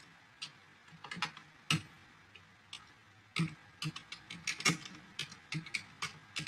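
Typing on a computer keyboard. A few separate keystrokes come in the first two seconds, then quicker irregular runs of keys from about halfway.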